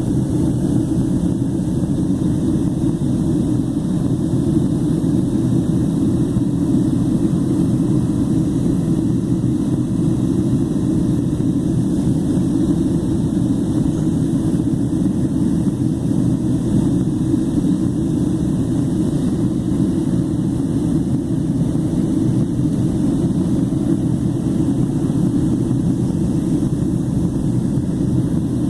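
Jet airliner cabin noise heard from inside the cabin during descent: a steady low roar of engines and rushing air, unchanging throughout.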